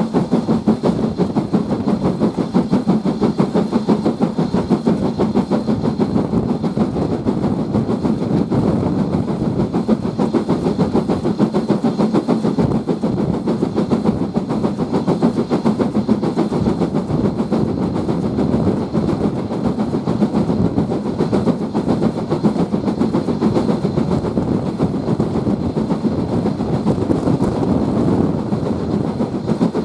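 BR Standard Class 4 2-6-4T steam tank locomotive working a train at speed, its exhaust beating in a fast, steady rhythm over the wheels running on the rails.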